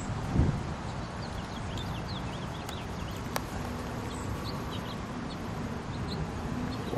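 Small birds chirping, many short high calls scattered throughout, over a steady low rumble of outdoor background noise, with a single sharp click about three and a half seconds in.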